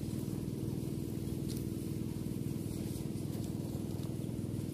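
A steady low mechanical hum with a fast, even pulse, like a motor running at constant speed, with a few faint ticks over it.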